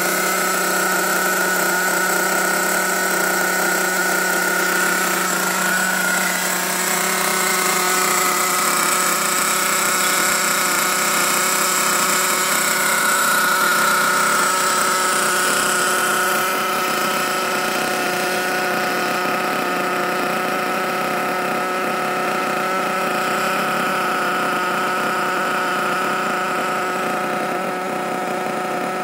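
Small nitro engine of an HPI Trophy Truggy 4.6 RC truck idling steadily during its break-in (running-in), with only small shifts in pitch.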